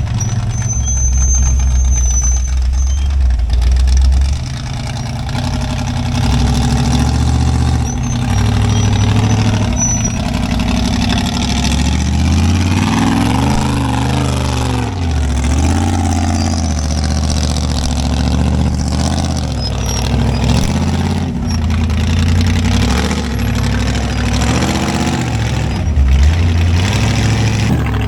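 Off-road rock-crawling rig's engine running at low speed, revving up and down in repeated pulls as it works over the rocks, with the pitch swinging up and down about halfway through.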